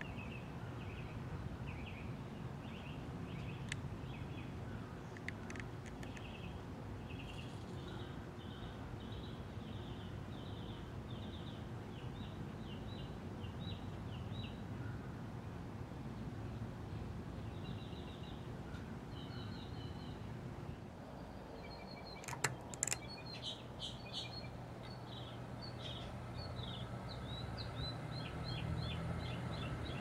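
SMC Laguna KB36 ceiling fan running with a low, steady motor hum while small birds chirp in repeated trills. About two-thirds of the way in there are a few sharp clicks. After them the hum becomes steadier and grows louder as the blades speed up.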